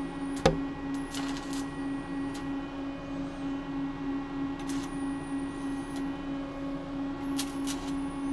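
Stick-welding electrode being struck at a low setting of about 40 amps over a steady machine hum. There is a sharp click about half a second in, then short crackles three times as the 1/8-inch rod scratches and flickers without yet holding a steady arc.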